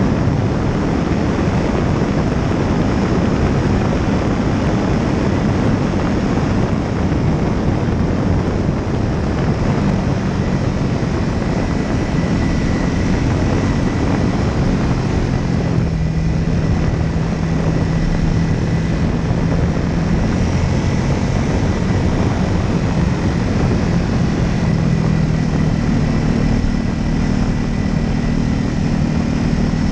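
Small aircraft engine and propeller running steadily in flight, with wind rushing over the microphone; the engine note shifts slightly in pitch now and then.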